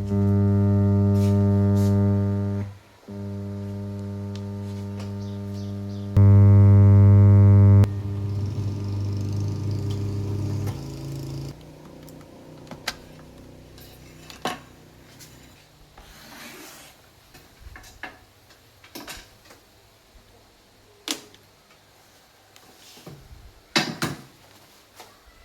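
California amplifier humming through its speaker, the fault being repaired: a loud, buzzy, steady hum that starts suddenly, dips and comes back at changing strength, then fades out about eleven seconds in. Scattered small clicks and knocks follow.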